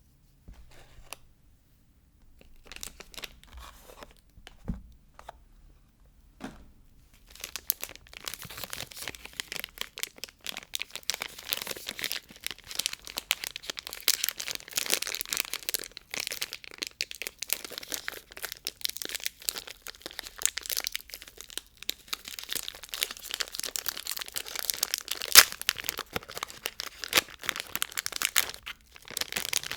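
Soap wrapping being torn open and crinkled by hand. A few light clicks and rustles at first, then continuous crinkling and tearing from about seven seconds in until just before the end.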